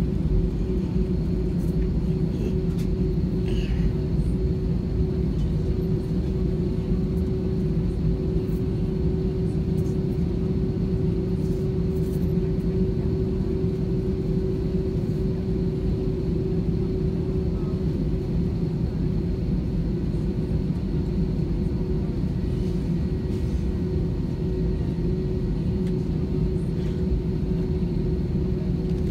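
Steady cabin rumble inside an Airbus A320 taxiing with its engines at low thrust, with a steady hum held throughout.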